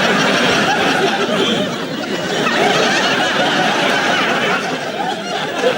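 Studio audience laughing: many voices overlapping in sustained laughter.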